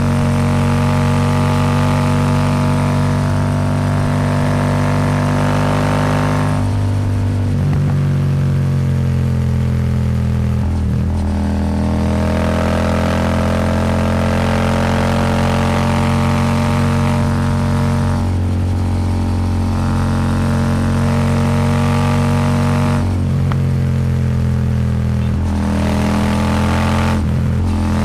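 Royal Enfield Super Meteor 650's parallel-twin engine running loud through an aftermarket slip-on exhaust under hard throttle. The note climbs in pitch, then briefly drops and breaks several times as the throttle is rolled off or a gear is changed, over a rush of wind.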